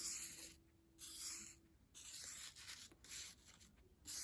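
Faint, repeated scratchy strokes, about five of them roughly a second apart, like something rubbed or scribbled across a surface.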